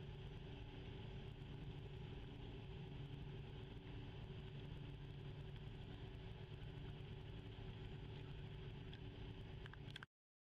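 Tugboat's diesel engine running steadily at low revs, a low, even drone with a constant hum. It cuts off suddenly near the end.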